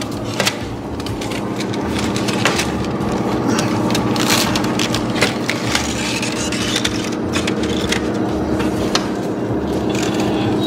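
Metal baking trays knocking and scraping against oven racks as bloomer loaves are slid out, turned round and pushed back in, over a steady low hum.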